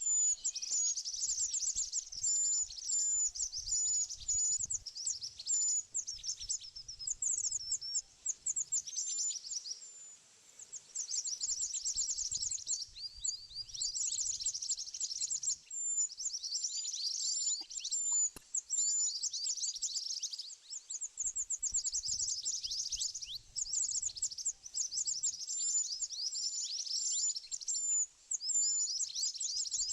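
Bird song: a continuous stream of high, thin, rapid chirps and twitters, pausing briefly about ten seconds in.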